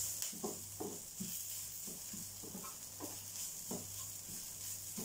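Wooden spatula stirring and scraping grated coconut as it roasts in a little oil in a non-stick frying pan, in short strokes roughly two a second, over a faint sizzle. The coconut is being roasted brown and kept moving so the layer at the bottom of the pan doesn't burn.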